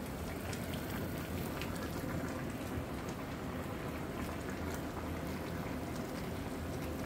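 Pot of spicy hot pot broth simmering over a gas burner: a steady bubbling hiss with small scattered pops.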